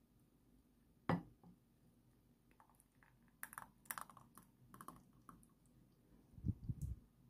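Faint clicks and taps of a metal saucepan and glass cups being handled while thick custard cream is poured into the glasses. There is a sharper click about a second in, a cluster of clicks in the middle, and a few low thumps near the end.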